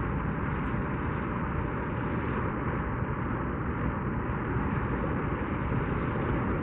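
Steady rush of wind and surf at the shoreline, heavy and rumbling on the microphone.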